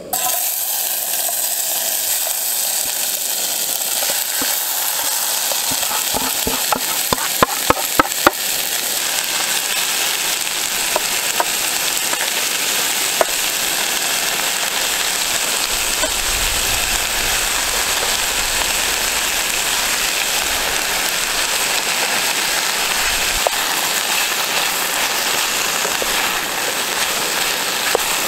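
Food sizzling steadily as it fries in a Trangia frying pan, with a quick run of sharp taps about seven to eight seconds in.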